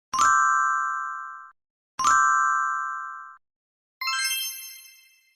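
Three chime sound effects from subscribe-button animations. Two identical bright dings come about two seconds apart, and each stops abruptly after about a second and a half. A different, higher chime follows about four seconds in and fades away.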